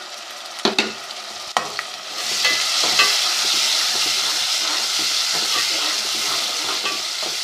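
Tomato paste sizzling in hot ghee with frying onion and ginger-garlic paste, as it is added and stirred. A couple of sharp knocks come first, then the sizzle swells about two seconds in and holds steady.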